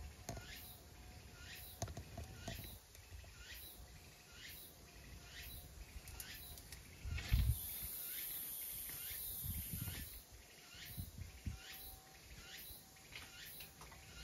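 A small bird calling over and over, a short falling chirp repeated about every half second. A few low bumps break in, the loudest about halfway through.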